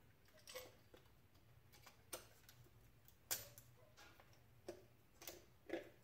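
Faint, scattered clicks and taps of an ignition coil pack being handled and set back into place on the engine, about half a dozen, the loudest a little past the middle.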